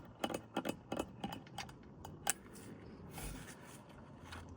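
Small, irregular metallic clicks and clacks, most of them in the first two seconds, from the oiled mechanism of a Teletype Model 35 typing unit being worked by hand, with a soft hiss later on.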